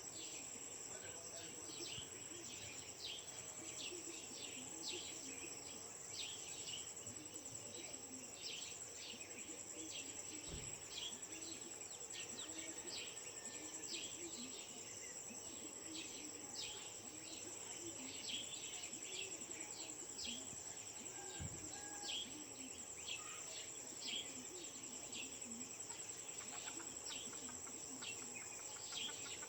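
Dawn chorus of many birds giving short, rapid chirps over a steady high-pitched insect drone.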